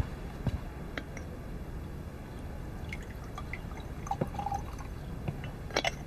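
Tea pouring from a large clay kettle into porcelain teacups, with dripping, and a few light clicks of china.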